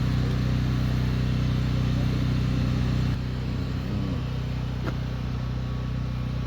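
An engine running steadily with a low, even hum; the sound drops abruptly in level about three seconds in, and there is a faint click near the end.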